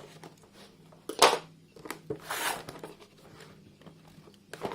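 Knife cutting through the packaging of a cardboard keyboard box: a sharp scraping cut about a second in, the loudest sound, then a longer rasping cut about a second later, with small handling clicks around them.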